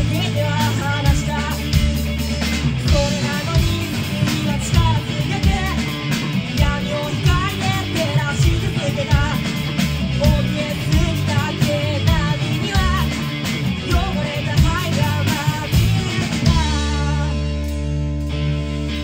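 Three-piece rock band playing live: electric guitar, bass guitar and drum kit, with a wavering lead melody over the top. About three-quarters of the way in the drums stop, leaving held guitar and bass notes ringing.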